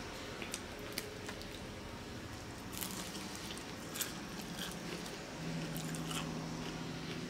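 Close-up eating sounds: chewing a mouthful of pho noodles, with scattered small clicks as wooden chopsticks work in a glass bowl. A low steady hum comes in about five seconds in.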